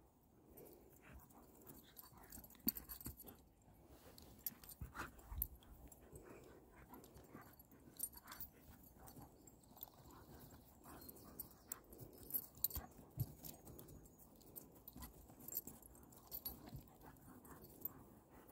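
A Kangal and a Doberman play-fighting: faint dog scuffling and mouthing noises, broken by many short sharp clicks.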